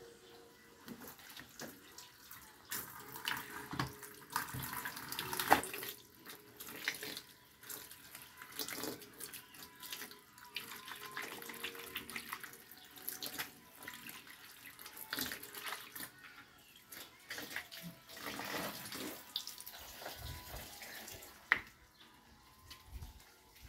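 Tap water running and splashing as clothes are rinsed and wrung by hand in a concrete washtub. The splashing comes in uneven bursts, loudest about five seconds in, and dies down near the end.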